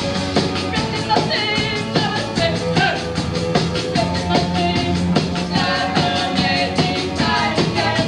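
A live band performing a rock song with a fast, even beat.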